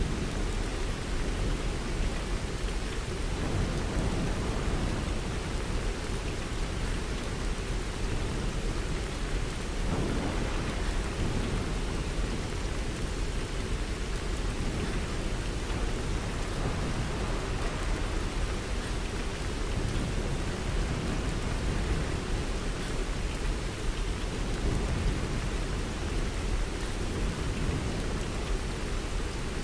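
Steady heavy rain, with a continuous low rumble underneath.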